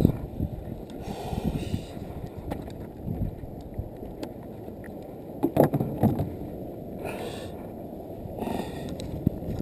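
Wind buffeting the camera microphone and water lapping at an inflatable boat, with a cluster of sharp knocks a little past halfway.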